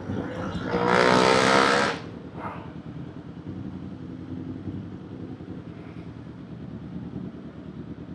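Kawasaki Z400 parallel-twin engine heard from the rider's seat. About a second in there is a short, loud burst of throttle, its pitch climbing for about a second. After that it settles into a steady, lower running note.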